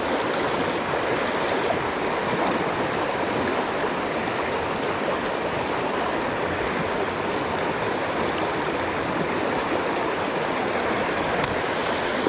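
Mountain stream water rushing, a steady, even noise that does not change.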